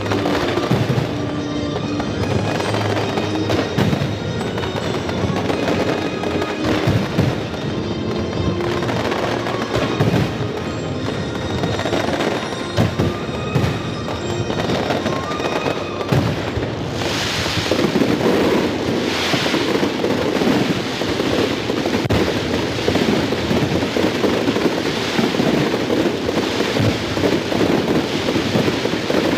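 Fireworks bursting in repeated bangs over music with held notes; a little past halfway the music drops away and the sound thickens into a dense, continuous wash.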